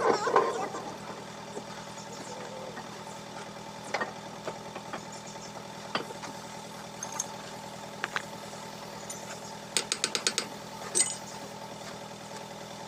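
An engine idling steadily, with scattered sharp metal clicks and knocks from parts being fitted into a motor grader's tandem axle housing, and a quick run of clicks about ten seconds in.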